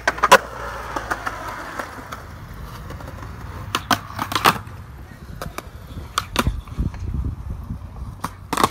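Skateboard tricks on concrete: sharp clacks of tail pops and of the board landing and striking ledges, in short clusters a few seconds apart, over the low rumble of wheels rolling on concrete.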